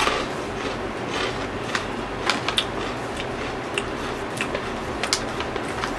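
Crunchy oven-baked cheese bites being chewed, a scatter of short sharp crunches over a faint steady room hum.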